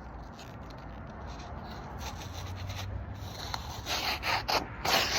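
A sharp custom forged knife blade slicing through glossy paper: rasping, papery cuts, with several quicker, louder strokes near the end.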